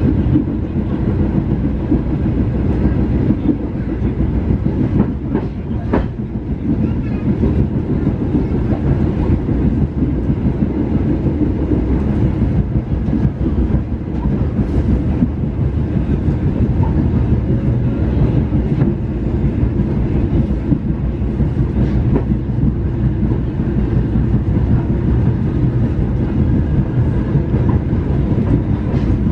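Passenger train running at speed, heard from inside the coach: a steady low rumble of wheels on the rails, with a couple of sharper clacks about five and six seconds in.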